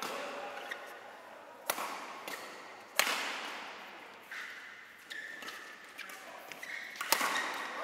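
Badminton racquets striking a shuttlecock during a rally: a few sharp hits, the loudest about three seconds in and another near the end, each echoing briefly in a large hall.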